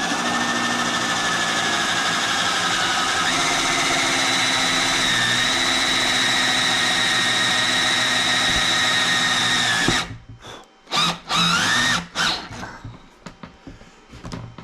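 Electric drill running steadily under load for about ten seconds, its pitch stepping once a few seconds in, then stopping. Several short trigger bursts follow, each spinning up and winding down.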